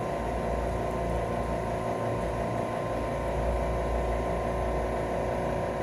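Air-conditioner outdoor unit running with a steady hum and several steady tones over a low rumble.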